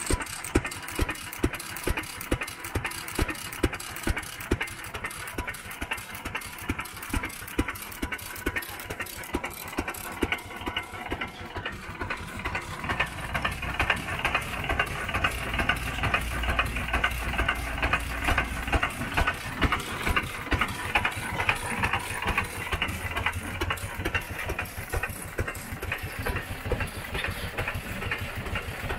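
Vintage Emerson-Brantingham horizontal stationary engine running, a steady rapid mechanical clatter with louder beats at uneven gaps of about a second. About halfway through, a low steady hum joins it.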